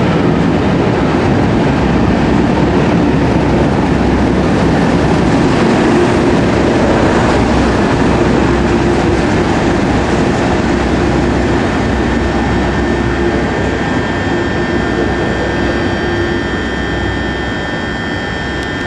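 Class 37 diesel locomotives' English Electric V12 engines working hard as the train pulls out of the platform, with the coaches rolling past in a steady, loud drone. Thin high whistling tones come in about two-thirds of the way through, and the sound eases a little near the end as the locomotive draws away.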